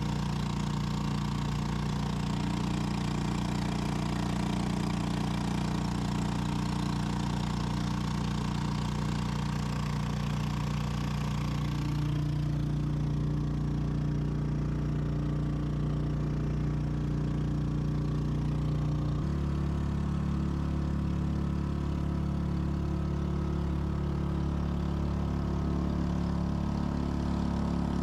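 A boat's engine running steadily, with a constant pitched hum. Its note changes about twelve seconds in and again about nineteen seconds in.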